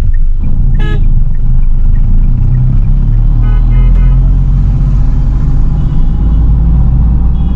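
Steady low rumble of engine and tyre noise inside a Tata Altroz's cabin as it drives on a wet road, with a short beep about a second in.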